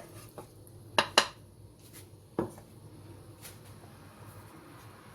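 Dishes and a metal utensil clinking in a few sharp knocks, the loudest pair about a second in, then single knocks about two and a half and three and a half seconds in.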